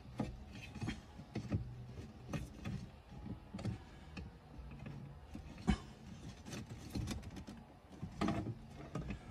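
Plastic dashboard trim and a digital instrument cluster being handled and pushed into place behind a car's steering wheel: scattered irregular clicks and knocks, the sharpest about five and a half seconds in, over a faint low hum.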